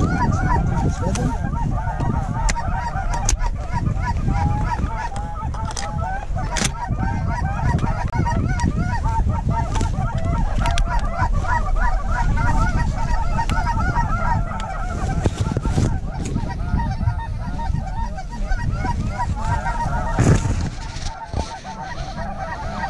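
A large flock of Canada geese honking, many short overlapping calls running on without a break, over a low rumble. A few sharp clicks, and a louder knock near the end.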